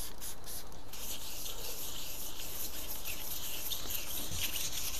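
Hand wet sanding of a freshly clear-coated car bumper with 2000-grit wet-and-dry paper: a steady, gently pulsing rubbing hiss as the wet paper is stroked back and forth over the paint to flat it before polishing. A few quick squirts of water from a trigger spray bottle come in the first second.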